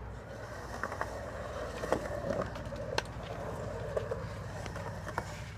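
Skateboard wheels rolling on the concrete of a skatepark bowl: a steady rumble with a few sharp clicks about a second apart near the start and again near the end.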